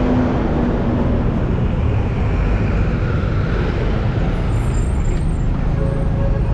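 Several buses' engines running in heavy rush-hour traffic, a steady loud low rumble.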